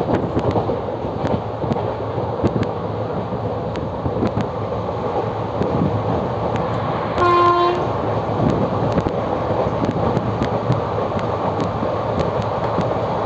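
Express train running along the line: a steady rumble with clicks from the wheels over rail joints, and one short blast of the locomotive's horn about seven seconds in.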